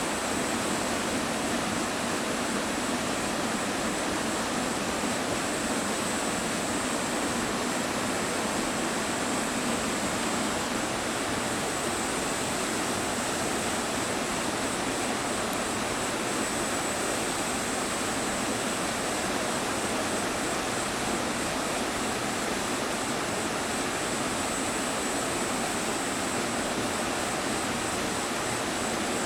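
Steady rush of falling water at a waterfall, an even unbroken hiss.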